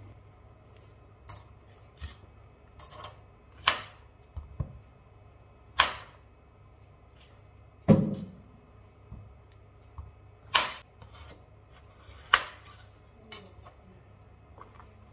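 Kitchen handling sounds: about a dozen irregular knocks and clinks of utensils and dishes being picked up and set down on a counter. The loudest, about eight seconds in, is a heavier thud.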